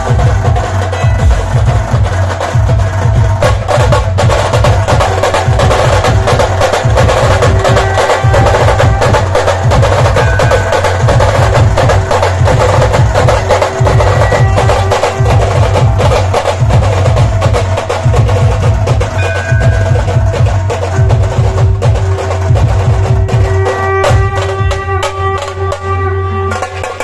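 Dhol-tasha ensemble drumming: big barrel dhols and sharp tasha snare strokes in a fast, dense, loud rhythm that thins out near the end.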